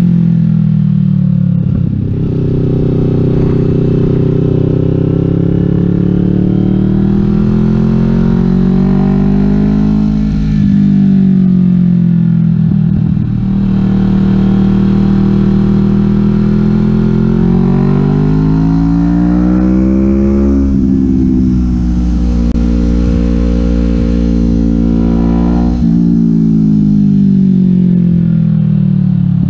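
Kawasaki Vulcan S's 650 cc parallel-twin engine through a Delkevic 550 mm slash full exhaust, heard from on the bike while riding. Its pitch climbs under throttle and falls back several times, dropping sharply about a third of the way in, again about two-thirds in, and once more near the end.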